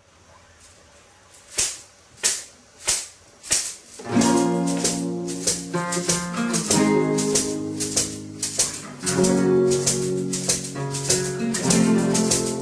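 Background music: four sharp percussive strokes in the opening seconds, then a fuller instrumental track with sustained notes and a steady beat comes in about four seconds in.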